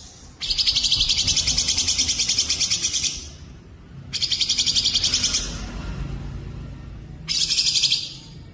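Songbird singing rapid, evenly pulsed high trills in three bursts: a long one of about three seconds, a shorter one about four seconds in, and a brief one near the end.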